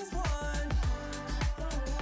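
Background pop music with a steady drum beat, bass and melody.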